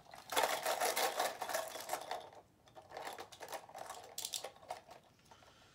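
Small Beyblade parts rattling and clicking together as a hand rummages through a parts tray: a dense clatter for about two seconds, then a few scattered clicks.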